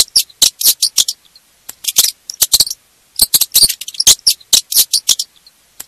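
Rabbit calling in quick runs of very short, high-pitched squeaks, with brief pauses between the runs.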